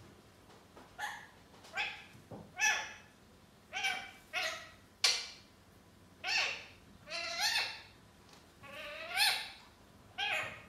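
Indian ringneck parakeet giving a string of about ten short calls, roughly one a second, each rising then falling in pitch.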